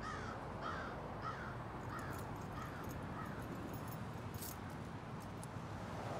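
A crow cawing six times in a steady series, about one and a half calls a second, over a steady low outdoor hum. A few small clicks follow in the middle.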